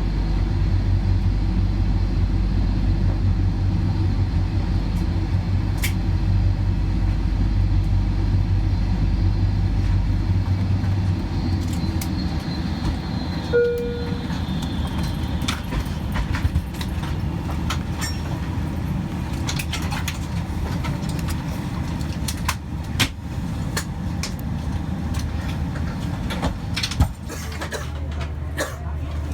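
Boeing 747-400 cabin noise: a steady rumble of engines and air conditioning, whose deep hum drops away about ten seconds in as a high whine falls in pitch, the engines winding down. A single short cabin chime sounds soon after, followed by scattered clicks and knocks.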